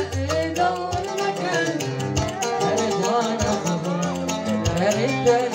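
Electronic arranger keyboard playing a plucked-string melody over a programmed drum beat with a low thump about every second, and a man singing into a microphone.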